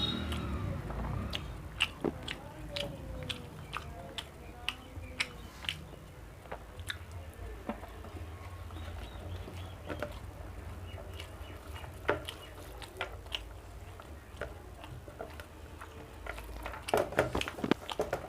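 A person chewing food close to the microphone, with irregular sharp wet mouth clicks and smacks, busier and louder near the end.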